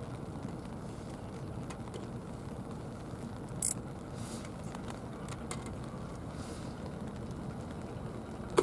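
Steady low outdoor rumble of seaside ambience, with faint scattered ticks. A short high hiss comes about three and a half seconds in, and a sharp click right at the end.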